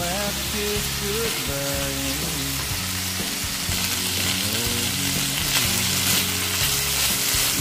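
Shrimp and ginger frying in olive oil in a nonstick pan, sizzling steadily while a spatula stirs them.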